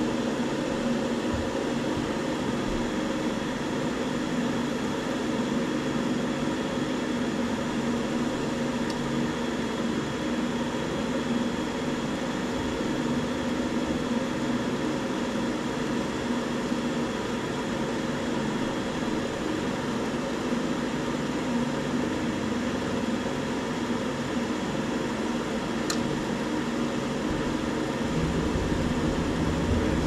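Forced-air furnace running with a steady hum, called on by jumpering its thermostat terminals: the furnace itself runs fine, so the no-heat fault lies on the thermostat side.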